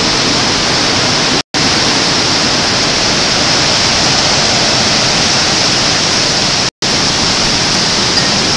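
Hurricane Katrina's wind and driving rain, a loud, steady rushing noise with no single gust standing out. The sound cuts out completely for an instant twice, about a second and a half in and again near seven seconds.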